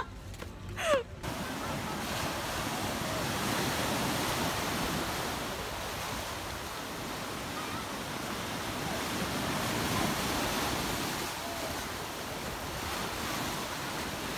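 Ocean surf breaking on a beach: a steady rushing of waves that swells louder a couple of times.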